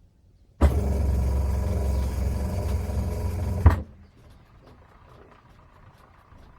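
Sharp ESS 119 washing machine motor pulsing during the wind spin cycle. It switches on with a click about half a second in, hums low and steady for about three seconds, then cuts off with a click, leaving a faint whir.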